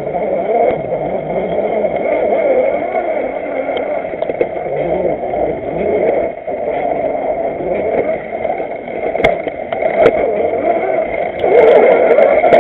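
Motor and gear whine of a 1/6-scale RC Willys Jeep, picked up close by its onboard camera, wavering up and down as the throttle changes while it crawls over rough dirt. A couple of sharp clicks come about two-thirds of the way in, and the whine gets louder near the end.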